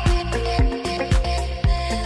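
Background music with a steady, punchy drum beat about two kicks a second and a bass line.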